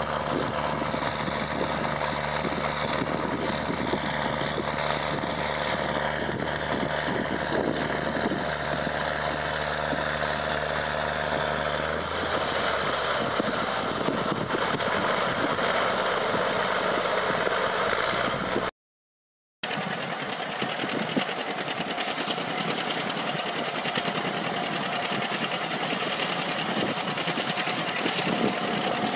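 John Deere four-wheel-drive articulated tractor's diesel engine running steadily as it pulls tillage gear, the low drone dropping away about twelve seconds in. After a short silence at a cut about two-thirds through, another John Deere four-wheel-drive tractor's diesel runs under load pulling a disc harrow.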